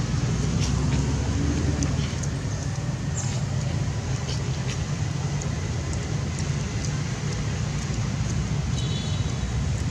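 Steady low rumble of outdoor background noise with a light hiss, a few faint ticks, and a brief high chirp about nine seconds in.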